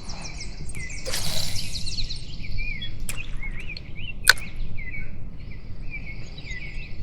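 Songbirds chirping and warbling. About a second in, a brief swish that fits a fishing rod being cast, and a single sharp click about four seconds in.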